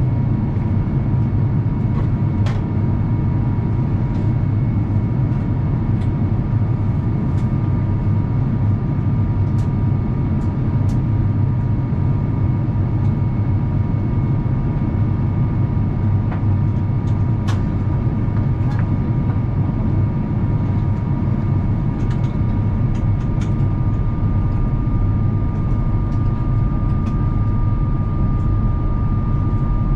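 Steady cabin noise of an Airbus A350-900 in flight during descent: a loud, low rumble of airflow and the Rolls-Royce Trent XWB engines, with steady whining tones. A slightly higher tone grows louder about halfway through.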